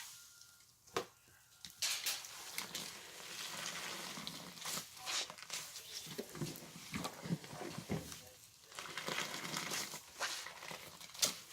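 Sponge soaked with laundry soap being squeezed by hand, squelching and crackling with foam in irregular bursts.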